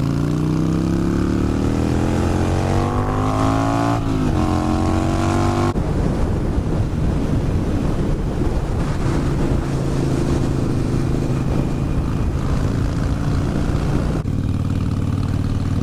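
Harley-Davidson Sportster Iron 883's V-twin engine accelerating with its pitch rising, shifting up at about four seconds and pulling again. From about six seconds it cruises at a steady note under a loud rush of wind, which eases off near the end.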